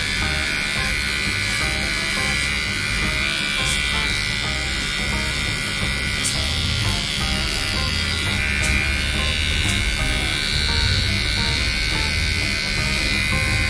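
Cordless electric pet trimmer running steadily as it shaves hair from a toy poodle's face and muzzle, a quiet-running clipper. Background music plays under it.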